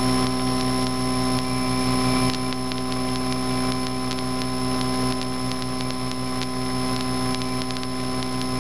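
Cessna 152's four-cylinder Lycoming piston engine and propeller droning steadily at climb power, heard from inside the cockpit.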